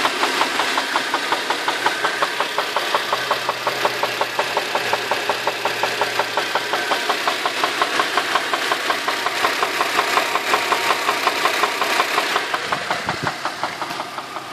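Infiniti FX35's 3.5-litre V6 idling warm with a steady, rapid, evenly spaced knock, about five a second: a knock in the engine that stays after warm-up.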